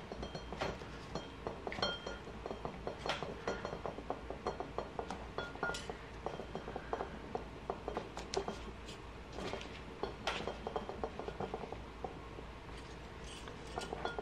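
Faint, scattered small clicks and light rubbing from gloved hands working a new oil seal over the tape-wrapped inner tube of a motorcycle fork.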